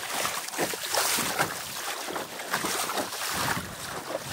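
Water splashing and sloshing against the hull of a sailboat under way in choppy sea, with wind on the microphone.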